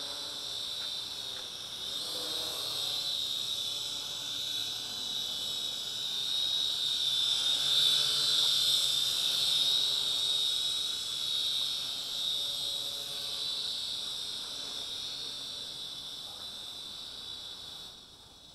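Fineco FX-6C toy quadcopter's motors and propellers whining in flight. The high whine grows loudest about halfway through as the drone passes close, then fades as it climbs away near the end.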